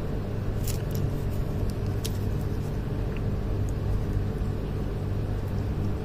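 A steady low hum, with a few faint clicks in the first couple of seconds.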